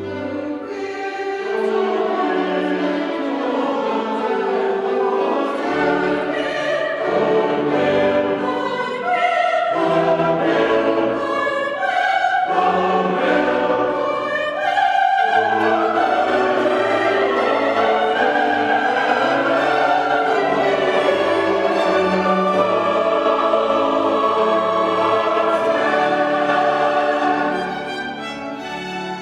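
Choir singing with orchestral accompaniment, full and sustained, easing to a quieter passage near the end.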